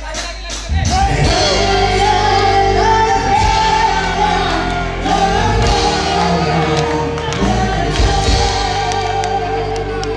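A live band with a woman singing into a microphone through the PA. The band comes in loudly just under a second in, and her sung melody runs over it.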